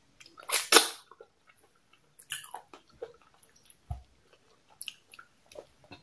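Close-miked mouth sounds of eating pounded yam with okra soup by hand: a loud wet sound as the bite goes into the mouth about half a second in, then chewing with scattered short, sticky smacks and clicks.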